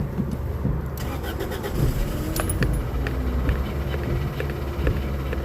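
Car engine being restarted after a stall, turning over and running unevenly with irregular ticks. It has a freshly replaced fuel pump and is still short of fuel.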